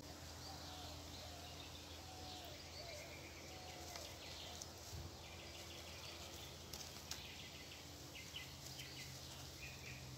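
Faint outdoor ambience: birds chirping in the distance, with a few faint clicks, over a steady low hum.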